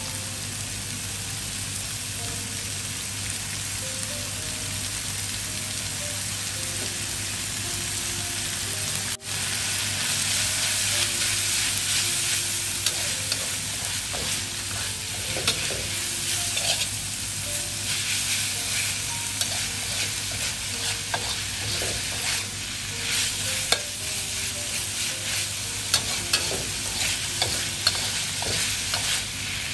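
Pork and pork skin sizzling as they are stir-fried with chilli and garlic in a steel wok, a metal spatula scraping and clicking against the pan. From about nine seconds in the sizzle is louder and the spatula clicks come thick and fast.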